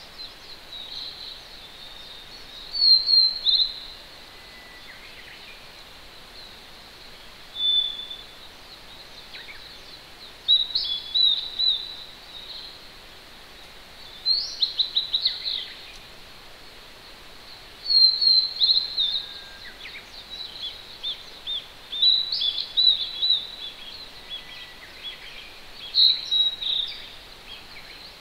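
Wild songbird singing quick, high phrases of rapid falling notes about every four seconds, with a few fainter, lower notes from other birds, over the steady hiss of a distant mountain stream.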